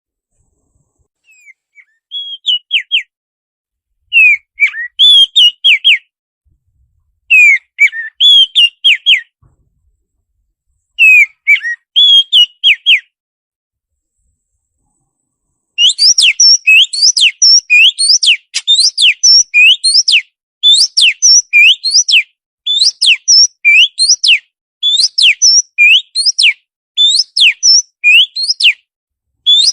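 Recorded songbird song played as masteran tutor audio for caged birds: four short phrases of quick whistled notes separated by silences, then, about halfway through, a fast unbroken run of repeated sweeping whistles.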